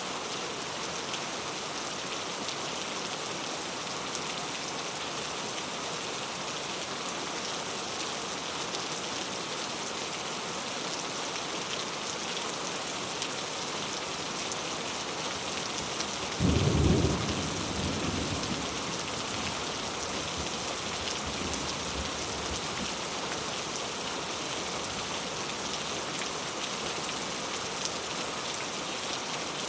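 Steady rain ambience. A little past halfway, a clap of thunder rumbles and dies away over a few seconds.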